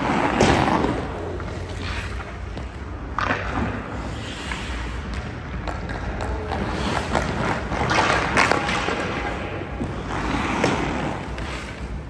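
Hockey skate blades scraping and carving on rink ice in repeated bursts, with a few sharp knocks, over a steady low hum.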